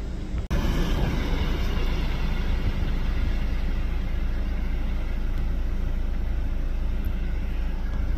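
Boeing 737-800's CFM56-7B jet engines at high thrust at the start of the takeoff roll: a steady, heavy rumble and rushing noise. The sound cuts out for an instant about half a second in and comes back fuller.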